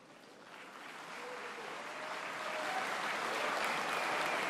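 Large audience applauding, swelling from faint to full over the first three seconds and then holding steady.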